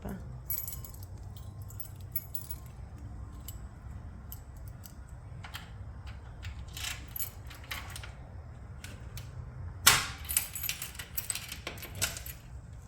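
Light metallic jingling and clinking in short, scattered bursts, the loudest run about ten seconds in, over a steady low rumble.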